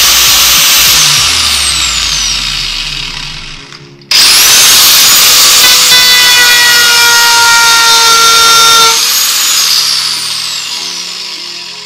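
Angle grinder with a plastic fidget spinner mounted in place of a disc, spinning at full speed: switched off about a second in and running down with a falling whine, switched on sharply again about four seconds in and pressed against a cardboard tube, then switched off near the end and running down with a falling whine. The spinner does not cut the cardboard; it wears itself away.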